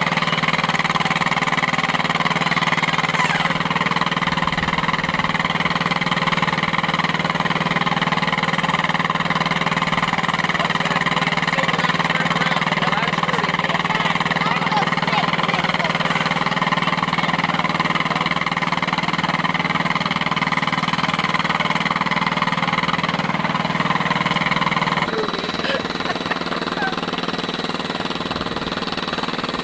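An engine running steadily at idle, a constant low hum that drops in level and loses its deepest part near the end.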